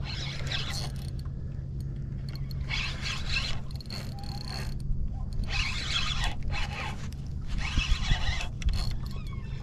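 A fishing reel working against a hooked redfish, heard as about six separate bursts of zipping and whirring, each roughly a second long.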